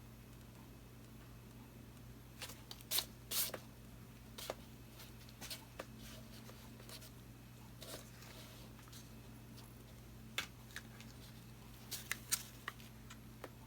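Faint scattered scrapes and clicks of a painted canvas being handled and spun, over a steady low hum.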